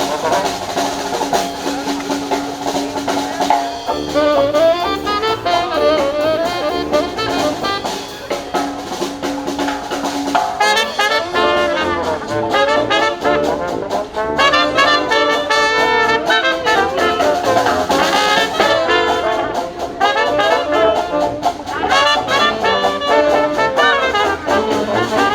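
Live brass band playing a jazzy tune, trumpets and trombones over a steady beat of drums, with a long held low note under the melody for about the first ten seconds.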